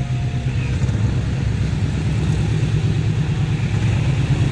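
Steady low rumble of a vehicle, with no horn sounding.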